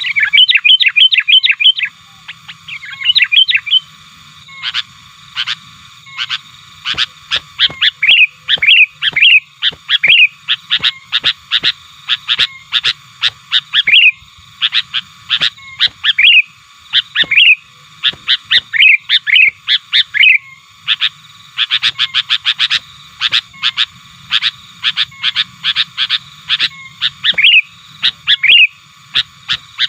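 Male sooty-headed bulbul calling loudly and incessantly, in rapid runs of short, sharp notes broken by quick upward-sweeping whistled phrases. It is an aggressive, challenging call used to provoke rival wild bulbuls.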